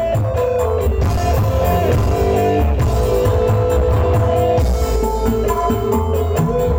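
Loud music with strong bass, played over a sound system during a sound check.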